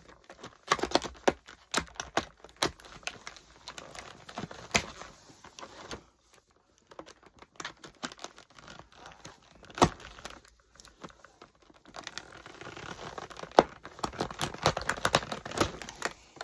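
Stiff plastic packaging being cut open with a multi-tool's package-opener blade and pulled apart, crinkling and crackling with many sharp snaps. The crackling grows dense about three-quarters of the way through.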